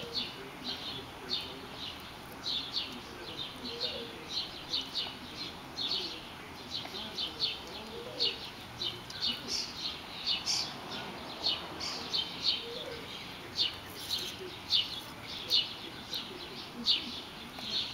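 A small bird chirping over and over: short high chirps, a few each second, irregularly spaced.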